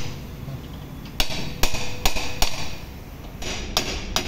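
Hammer blows on the rear axle end and brake assembly of a Maruti Suzuki Alto, metal on metal while the axle is being removed. Four sharp strikes come about half a second apart, then after a short pause the hammering starts again near the end.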